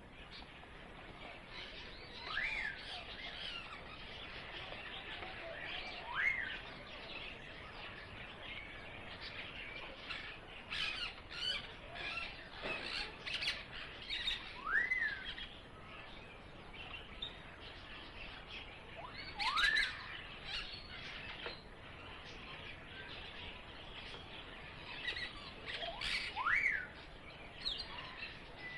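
Birdsong ambience: many small birds chirping together. Five times, one call stands out, a quick whistle that rises and then falls back.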